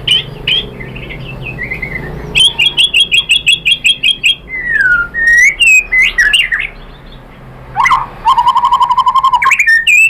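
White-rumped shama singing: varied phrases of rapid repeated notes, trills and gliding whistles, one after another with brief pauses.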